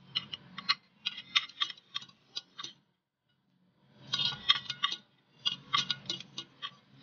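Close-miked eating sounds: quick runs of small clicks and ticks from chewing and cutlery on a plate, in two spells with a pause of about a second between.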